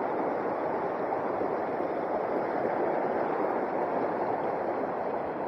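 Mountain creek water rushing over rocks, a steady, even noise.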